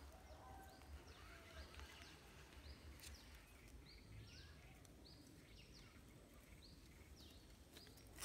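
Near silence, with a bird giving faint, short, high chirps over and over, about one or two a second.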